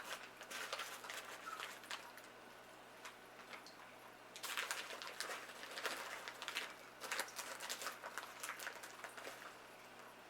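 Quiet rustling, scraping and small clicks of a bag of brown sugar being handled and scooped into a measuring cup, the busiest stretch from about halfway through to near the end.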